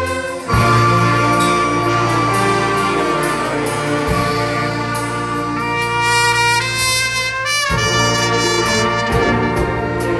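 Orchestra playing, led by trumpets and trombones holding sustained chords, with the chord changing about half a second in, again around four seconds and near eight seconds.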